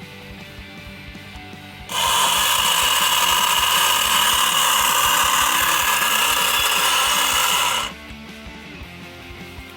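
A small electric motor runs at a steady, loud whirr for about six seconds, starting about two seconds in and cutting off suddenly, over background music.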